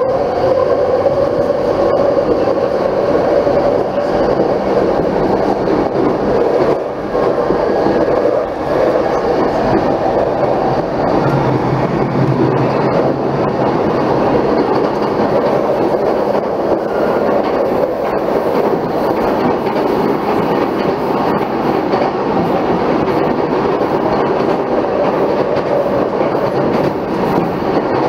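Saikyō Line commuter electric train running at speed, heard from inside the car: a steady rumble of wheels on rail with a few sharp clicks.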